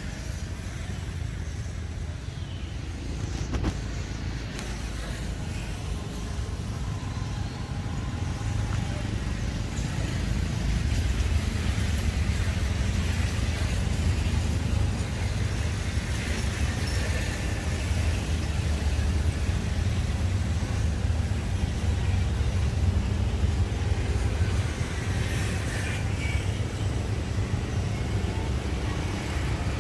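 Steady low outdoor rumble, growing louder about ten seconds in.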